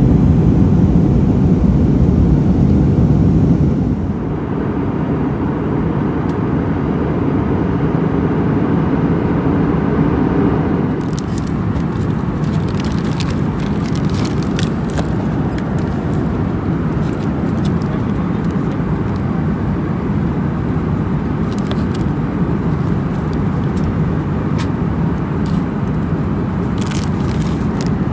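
Steady cabin noise of an Airbus A320-200 in flight: engine and airflow noise, dropping a little about four seconds in. From about eleven seconds in, scattered crinkling of plastic snack bags being handled sits on top of it.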